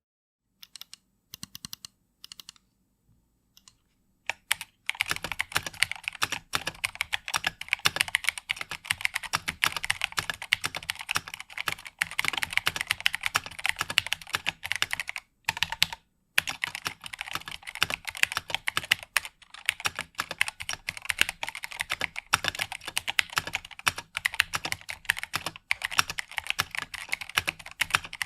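Typing on a LeleLab Y2K 76 mechanical keyboard, an open through-hole board with LeleLab Crystal linear switches and an FR4 plate. A few scattered single keystrokes give way, about four seconds in, to fast continuous typing, which breaks off briefly twice.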